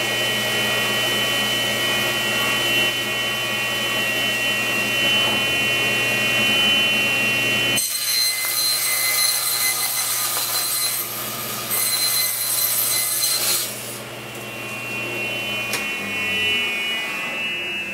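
Table saw running, then cutting a quarter-inch-deep groove along a plywood panel for several seconds. Near the end it is switched off, and its whine falls in pitch as the blade coasts down.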